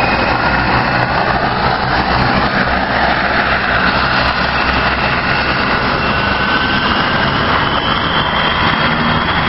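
Rescue helicopter running on the ground with its rotor turning: a loud, steady turbine whine over the rotor's noise, the whine drifting slightly in pitch.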